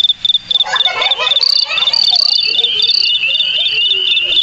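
Crickets chirping outdoors: a steady high chirp repeating about four times a second, joined about half a second in by a denser, continuous chirring from more insects.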